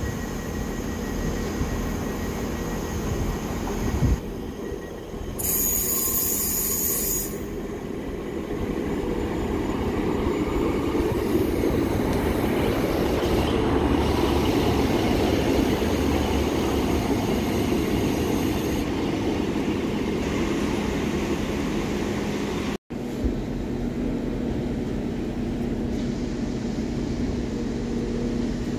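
A train running at a station platform, its steady engine hum and running noise swelling through the middle. About six seconds in there is a burst of high hiss lasting about two seconds.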